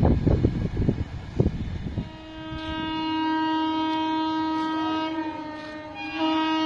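A brief stretch of loud rumbling and knocks, then from about two seconds in an approaching Indian Railways locomotive sounds its horn in one long steady blast, which gets louder near the end.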